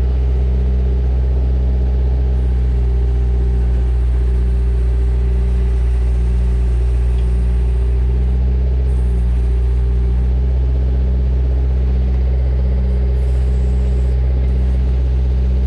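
Bobcat 331e compact excavator's diesel engine running steadily with a low, even hum, a faint steady whine sitting above it.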